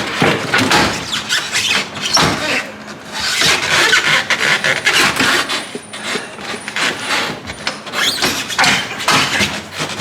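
Spare tire and jack being wrenched about in a station wagon's rear cargo well: irregular rubbing, scraping and knocking of rubber and metal as it is forced out.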